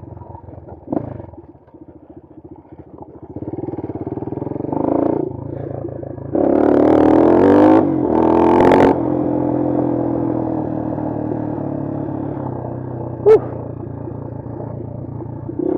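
Bashan Brozz 250 dual-sport motorcycle engine on a trail ride. It runs low at first, is revved up hard twice about halfway through, then runs steadily. There is a single sharp click near the end.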